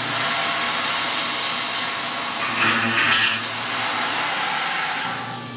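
Steady hiss of a mist-coolant air spray over a Tormach CNC mill countersinking holes in an aluminum plate, with a brief harsher cutting noise about three seconds in. The hiss eases off near the end.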